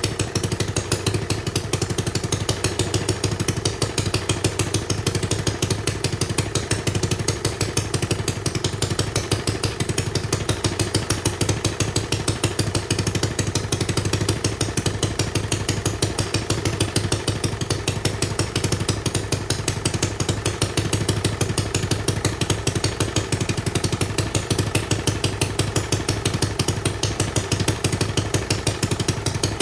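Homemade single-cylinder engine running steadily, a rapid and even exhaust beat with no change in speed.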